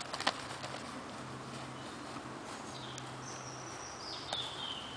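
Outdoor ambience with a couple of sharp smacks of boxing gloves just after the start. About three seconds in comes a thin high whistle that steps down in pitch.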